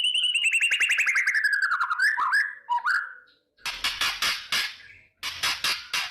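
White-rumped shama (murai batu) calling. A fast trill of clipped notes falls in pitch over about two seconds, then come a few short notes. Two bursts of harsh, rapid crackling rasps follow: the shama's 'kretekan' notes.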